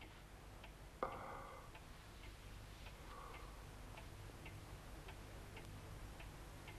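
Clock ticking quietly and steadily, about two ticks a second. A brief, louder soft sound comes about a second in.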